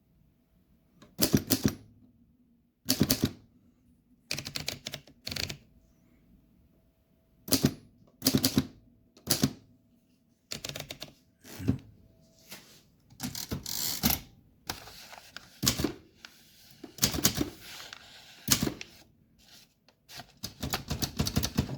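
Vintage portable manual typewriter being typed on: typebars striking in short, uneven runs of keystrokes with pauses between them.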